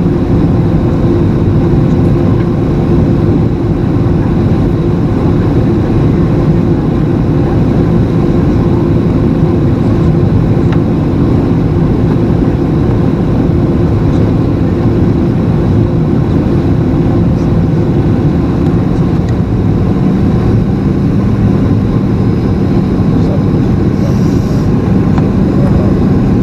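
Steady cabin drone of a Boeing 737-800 on approach, from its CFM56-7B turbofan engine and the airflow, heard from a window seat over the wing. A few faint held tones sit in the even noise.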